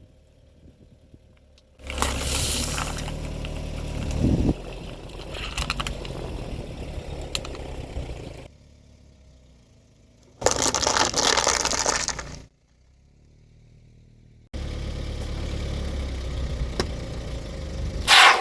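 A car's engine running as its tyres roll over objects and crush them, in stretches that cut off abruptly, with a sharp crack near the end.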